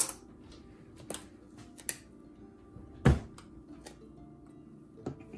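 Scattered clicks and knocks of a glass jar and spoon being handled while chicken bouillon is scooped into a measuring cup of water, with one louder knock about three seconds in. Faint background music plays underneath.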